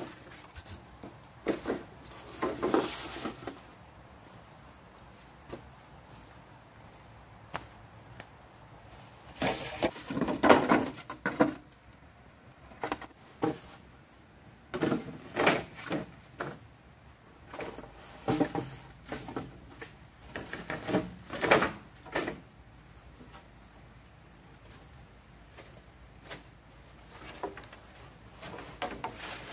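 Insects chirring steadily in a high, even tone, with irregular knocks, clatters and scrapes of work coming in clusters; the loudest clusters are about a third and about two-thirds of the way through.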